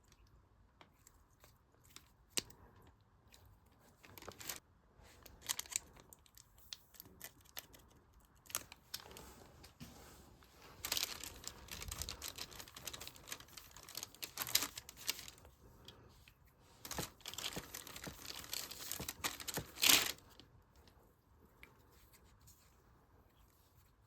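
Slime being mixed with beads, giving crackling, popping clicks. Single pops come first, then two long stretches of dense crackle, the loudest near the end.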